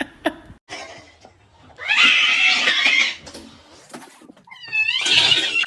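A cat yowling loudly: a long harsh cry, then a wavering, warbling cry and another harsh one near the end.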